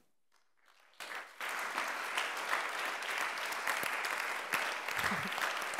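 Audience applauding, starting about a second in after a moment of near silence.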